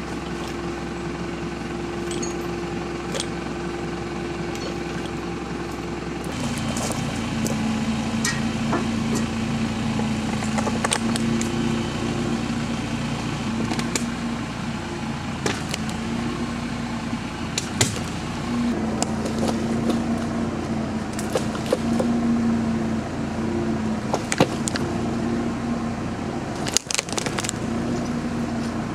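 Tractor engine running steadily, then working harder from about six seconds in with a lower, louder note as it pulls a tree over. Sharp cracks of splitting wood come now and then.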